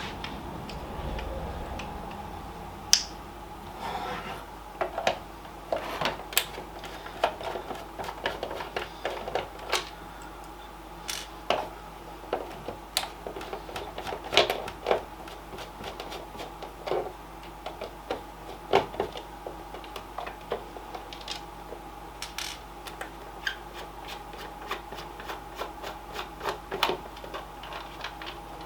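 Screwdriver and hands clicking and tapping against the plastic housing of a gaming steering wheel as its screws are reached for and worked: irregular sharp clicks, some a few per second, over a faint steady hum.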